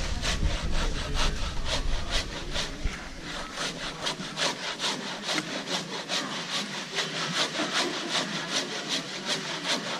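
Handsaw crosscutting through a large squared wooden timber in steady, even strokes, about three a second. A low rumble is in the background for the first three seconds, then stops.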